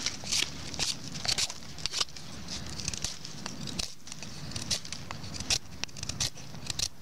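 A knife blade scraping shavings from a yellow birch stick: a run of short, sharp scrapes, roughly two a second.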